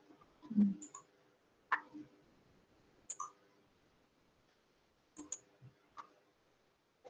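Computer mouse clicking: a handful of short, sharp clicks, several in quick pairs, as menu items are picked. A soft low thump about half a second in is the loudest sound.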